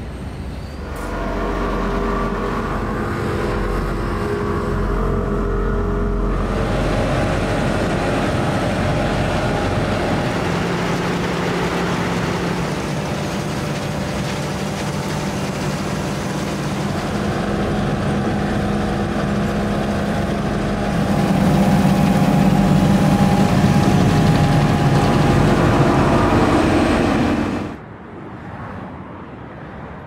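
Heavy diesel road-paving machinery (asphalt paver and feeder) running, a steady engine drone with a few shifts in character. It is loudest shortly before it drops away suddenly near the end.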